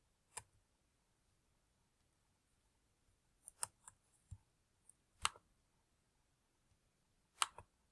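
Near silence broken by scattered sharp clicks, some in quick pairs, with one short low thump near the middle.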